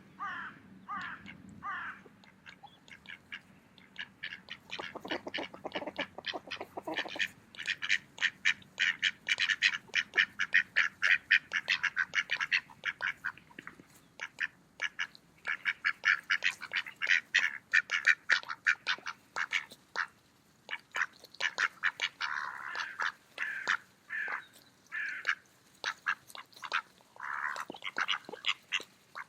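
Mallard ducks quacking while feeding: a few separate quacks at the start, then long runs of rapid, short sounds, with a brief lull around the middle and separate quacks again near the end.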